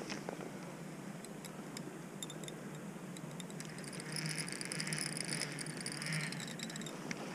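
Steady rush of river water, with a spinning reel ticking in the first half and its drag buzzing steadily for about three seconds in the second half as the hooked steelhead pulls line off.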